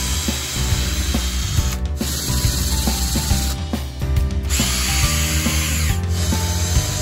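Cordless drill running in three bursts of a second or two, its bit boring into a hardwood log slice where it sits on a wooden dowel. Background music plays underneath.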